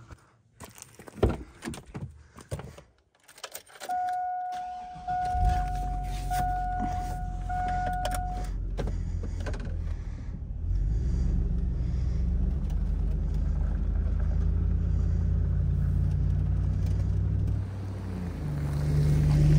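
Keys jangling and clicking, then a Chevy Silverado pickup's dashboard warning chime rings four times while the engine starts about five seconds in. The engine then runs steadily as the truck drives off, growing louder about ten seconds in.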